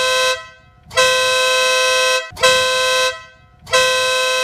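Denali Sound Bomb Split compressor-driven air horn on a motorcycle, sounded in a series of loud two-tone blasts: one ending just after the start, a long one, a short one, then another long one running on at the end.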